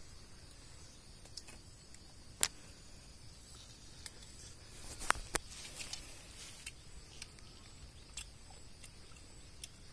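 Quiet outdoor ambience with a faint steady high insect drone, broken by a few sharp clicks and crackles, the loudest about two and a half seconds in and a pair just past five seconds.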